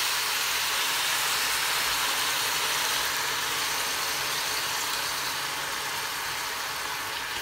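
Chicken feet sizzling in hot oil in a steel pot: a steady frying hiss that eases slightly toward the end, with a low steady hum underneath.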